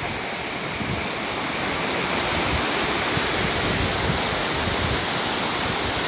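Waterfall rushing steadily as many streams of water pour down a mossy rock face, a little louder from about two seconds in.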